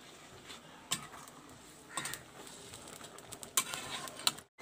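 Metal ladle stirring curry in a steel kadai, with a few light clinks and scrapes against the pan over a faint background hiss.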